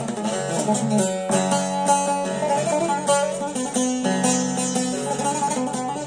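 Long-necked Turkish bağlama (saz) played solo: a picked melody of quickly changing notes over steady low drone notes.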